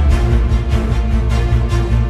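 Background music with a steady beat and held deep bass notes.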